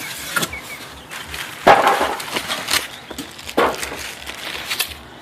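Knocks and clatter from handling the broken IBM Selectric II typewriter and its loose parts in the shipping box, a few scattered knocks with two louder ones about one and a half and three and a half seconds in.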